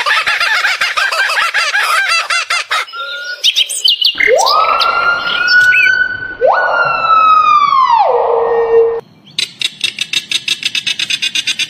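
Bird calls in three spliced clips: first a dense flock chatter of short rising chirps, then two long siren-like whistles that each climb and then slide down, then a fast, even clicking trill of several pulses a second.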